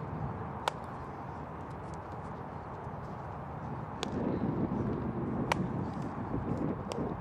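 Baseball infield practice outdoors: a few sharp knocks of bat and ball over steady field ambience, the loudest about a second in and again about five and a half seconds in. The background noise grows louder about four seconds in.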